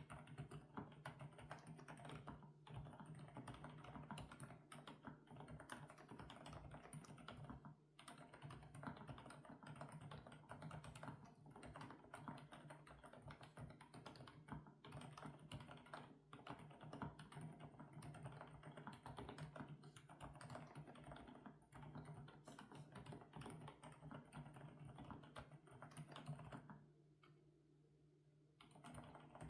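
Continuous fast typing on an FL-Esports OG98 mechanical keyboard with Kailh Coconut Latte switches, a dense run of key clicks. It stops for about two seconds near the end, then resumes.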